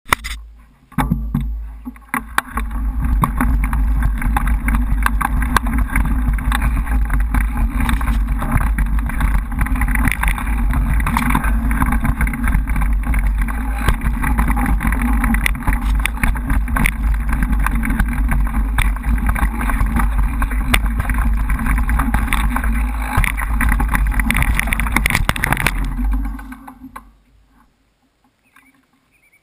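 Mountain bike ridden fast down a dirt trail, heard through a GoPro's microphone: steady wind buffeting with the rattle of the bike and its tyres over the dirt. The noise dies away about 27 seconds in, after the rider crashes and the bike lies on the ground.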